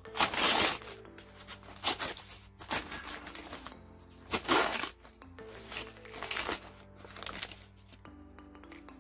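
Paper takeout bag crinkling in about six short bursts as it is handled, opened and the fries are shaken out onto it, over steady background music.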